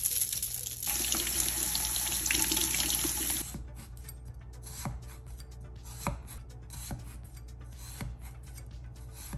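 Kitchen tap running with water splashing for a couple of seconds, then shut off. After that come a few short knocks as a knife is stabbed into a raw potato on a wooden cutting board.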